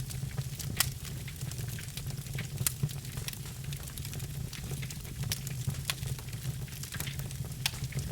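Birch logs crackling in a fireplace fire: a steady scatter of sharp, irregular pops and snaps, a few of them louder, over a steady low rumble.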